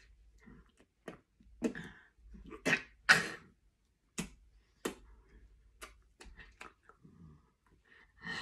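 A person's breathy gasps and exhales, the loudest about three seconds in, with scattered short sharp clicks and taps from hands and mouth during silent signing.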